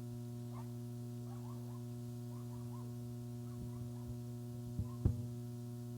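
Steady electrical hum from the sound system with the microphone open, over faint scattered chirps, and a few soft thumps, the loudest about five seconds in.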